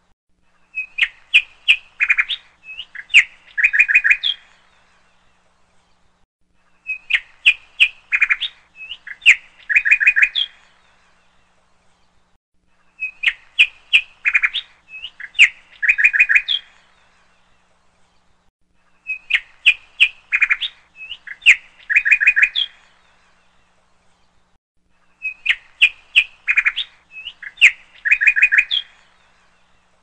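Bird chirping: a burst of quick, sharp chirps and trills lasting about four seconds, repeated the same way every six seconds, five times over, like a looped recording of one call.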